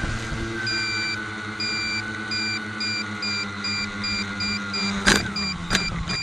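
Tricopter's electric motors and propellers running with a steady hum and whine, joined from about a second in by short electronic beeps repeating two to three times a second. Near the end come two sharp knocks, and the motor hum cuts off as the rotors start to spin down.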